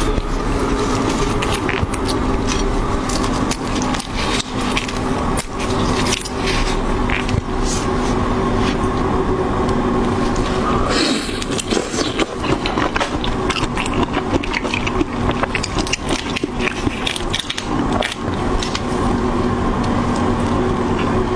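Shells of raw marinated red shrimp crackling and squelching wetly as gloved hands pull them apart and peel them, a dense run of irregular clicks and crackles.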